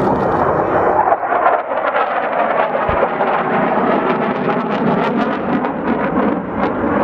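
Military jet fighter passing low and fast, its engine noise loud and full of crackle.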